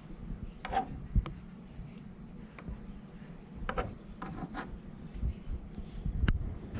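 A few short knocks and rubbing sounds, with faint voices in the background at times.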